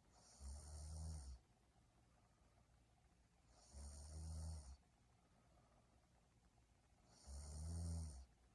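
A young woman snoring in her sleep: three low snores, each about a second long, coming roughly every three and a half seconds.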